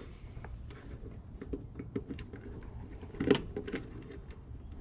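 Light clicks and rustles of thin wires and a plastic defrost sensor being handled against copper refrigerant tubing, with one louder click about three seconds in.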